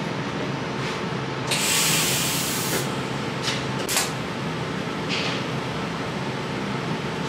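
TIG welding arc being struck and run along a joint while filler rod is fed in. A hiss lasting about a second comes in about one and a half seconds in, with a short crackle about four seconds in, over a steady hum.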